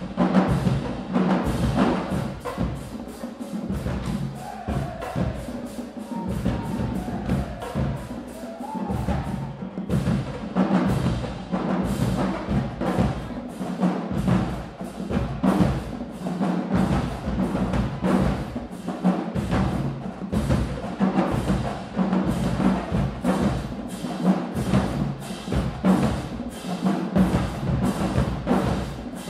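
Marching band drumline playing a fast cadence: rapid snare drum strokes over deep drum hits in a steady rhythm.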